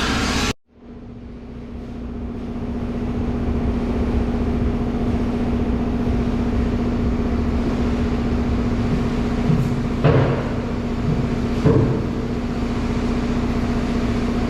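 Steady machine hum with a low rumble, after a brief dropout to silence about half a second in. Two short knocks sound about ten and twelve seconds in.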